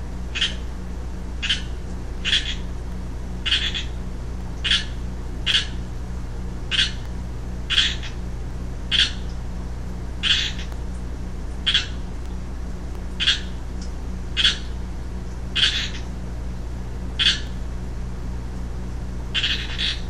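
Young male Pacific treefrog (Pseudacris regilla) calling: short calls repeated about once a second with uneven gaps, over a steady low hum.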